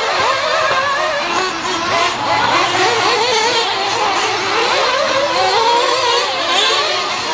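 Several nitro-powered RC cars' small two-stroke glow engines buzzing at high revs at once, their pitches rising and falling continuously with the throttle.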